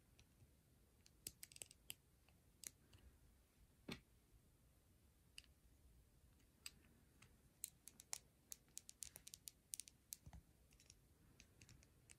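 Faint clicks of small plastic Lego pieces being handled and pressed together: scattered clicks about a second in, then a quick run of clicks from about seven and a half to ten seconds.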